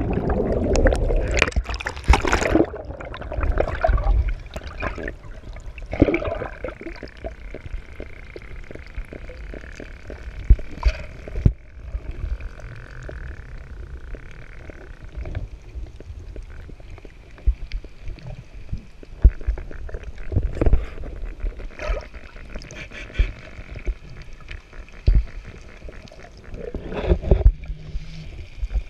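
Splash of a scuba diver plunging into the sea, then muffled underwater sound: gurgling bubbles from the diver's regulator with scattered knocks and clicks, and another louder burst of bubbling near the end.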